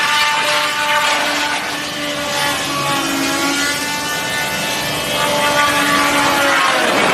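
Sawdust machine (wood crusher) running as branches are fed in on its infeed conveyor: a loud machine drone whose pitch wavers, sagging and recovering near the end.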